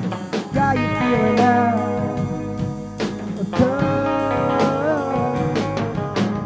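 Rock band playing an instrumental passage: a lead guitar bending and sliding notes over bass and a steady drum beat.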